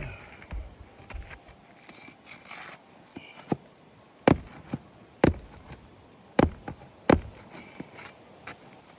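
Sharp metallic clicks and knocks of a pry bar being worked under asphalt roof shingles to lift out the nails, with four louder strikes between about four and seven seconds in.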